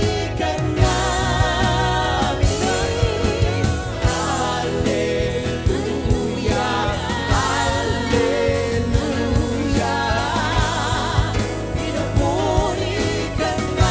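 Live contemporary worship music: a band with drums and bass under sung voices with vibrato.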